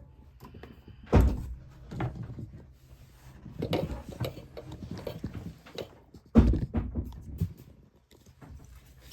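Knocks, clatter and two heavy thumps of things being handled, over a low steady hum that stops about two thirds of the way through.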